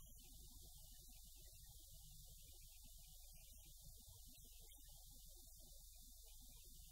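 Near silence: a faint steady low hum.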